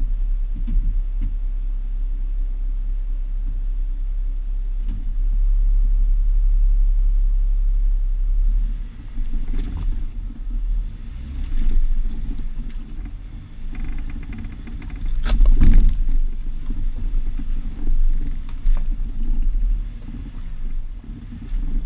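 Jeep driving off-road, heard from a GoPro mounted on the driver-side mirror: a muffled low rumble of engine and wind. About nine seconds in, the rumble turns choppy, with knocks and rattles from the rough ground. The loudest knock comes about fifteen seconds in.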